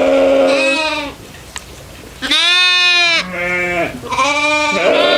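Goats bleating: several loud, drawn-out bleats at different pitches, one in the first second and then a run of them back to back from about two seconds in.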